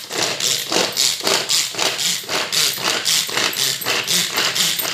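Celltone Classic pull-cord mini chopper being pulled fast again and again, about three pulls a second: the cord whirring out and back and the blades spinning, with carrot pieces rattling inside the plastic bowl.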